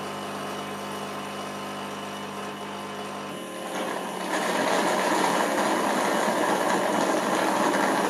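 Yeedi Mop Station Pro self-cleaning station running its mop-pad cleaning cycle: a steady mechanical hum with a whine, which grows louder and noisier about three and a half seconds in and then holds steady.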